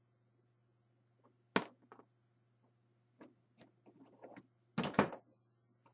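Plastic action figures knocking against a plastic storage tote as they are handled: a sharp knock about one and a half seconds in, scattered light clicks, and a louder cluster of knocks near the end.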